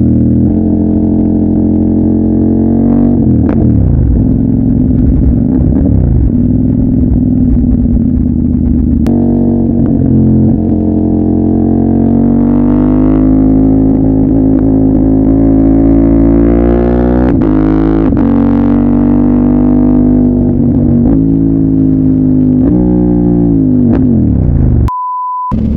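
CFMOTO 800MT's parallel-twin engine running through a straight-piped Yoshimura full-system exhaust with no catalytic converter, loud and deep, the revs rising and falling several times and dropping sharply near the end. A short steady beep cuts in just before the end.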